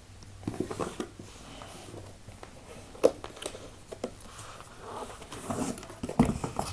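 Box being unboxed by hand: scattered light taps, scrapes and rustles of packaging being handled, with a sharper knock about three seconds in.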